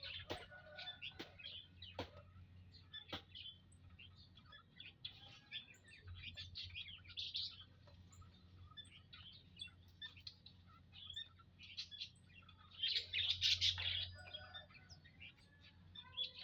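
A flock of munias (emprit) chirping in an aviary: many short, overlapping calls, with a few sharp clicks in the first seconds and a louder burst of chirping past the middle. A steady low hum runs underneath.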